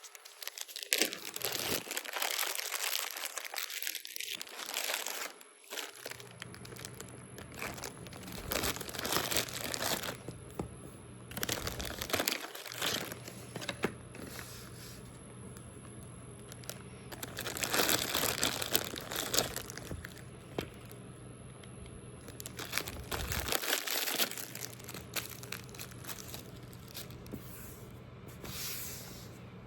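Irregular crinkling and rustling of plastic packaging being handled and pulled open, with a low steady hum underneath from about six seconds in.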